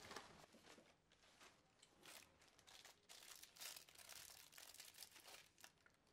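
Faint paper crinkling and rustling in a run of short crackly bursts, mostly in the middle of the stretch.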